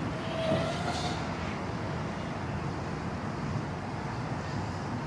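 FPV quadcopter's motors and propellers buzzing in flight, with a brief rise in pitch about half a second in, over a steady rush of wind.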